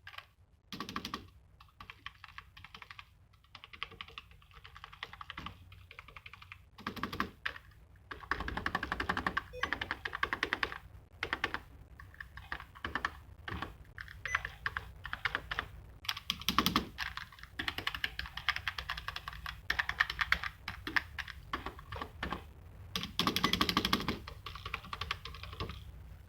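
Typing on a cheap $8 computer keyboard: runs of rapid key clicks broken by short pauses, with a few louder single key strokes among them.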